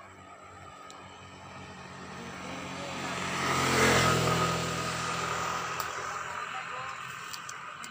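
A motor vehicle passing close by on the road: its engine and tyre noise grow louder to a peak about four seconds in, then fade, with the engine pitch dropping as it goes past.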